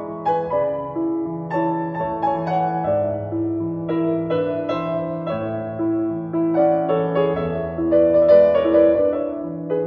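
Background piano music, a slow melody of sustained notes over held bass notes.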